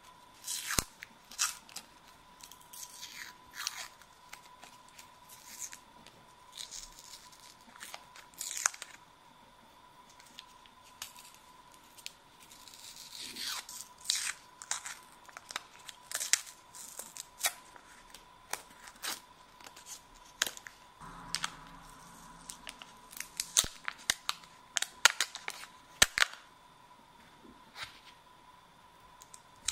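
Paper wrappers being peeled and torn off soft pastel sticks: a long irregular series of short rips and crinkles, with a few sharp clicks.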